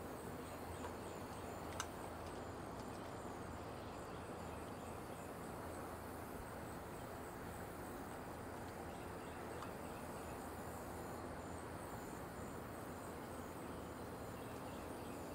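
Quiet outdoor ambience with insects, likely crickets, chirping faintly in a steady, even pulse over a low background hiss; one small click about two seconds in.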